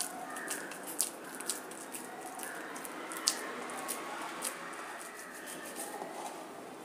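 Soft squishing and patting of wet rice-flour dough mixed with chopped greens as it is pinched off and rolled by hand into a long shape, with scattered light clicks, the sharpest about three seconds in.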